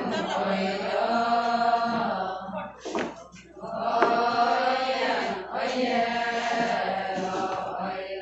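Group of women singing a ponung folk chant together in long, held phrases, with a short break about three seconds in before the next phrase.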